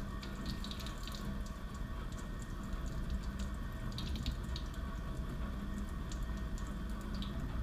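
Water running steadily from a gooseneck faucet into a stainless-steel scrub sink and splashing over hands as the fingernails are cleaned under the stream.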